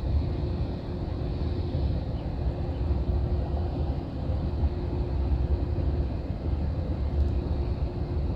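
Steady low rumble of an intercity coach's engine and tyres, heard from inside the moving bus, with a faint steady hum over it.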